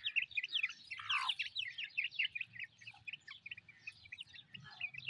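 Young chicks peeping, a steady stream of short, high chirps several times a second, each sliding down in pitch.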